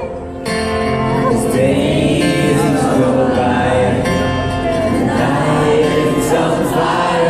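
Live acoustic guitar and singing of a rock song, with many voices of a concert crowd singing along.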